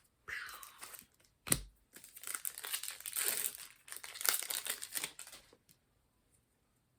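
Trading-card pack wrapper being torn open and crinkled in the hands, an irregular crackling with one sharp snap about a second and a half in. The crackling stops a little before the end.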